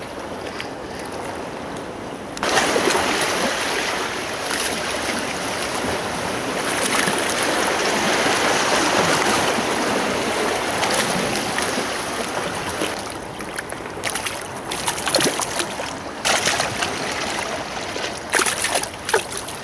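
Steady rushing noise of wind and sea water, starting suddenly a couple of seconds in. Scattered splashes and knocks come over the last several seconds as a hooked bluefish is brought up to the surface.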